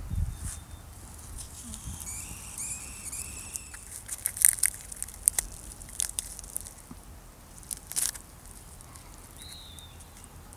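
Charred, crisp skin of a fire-roasted wood rat crackling and tearing as it is peeled apart by hand, in a run of sharp clicks between about four and eight seconds in. A bird sings a short phrase of whistled notes about two seconds in, and one more note near the end.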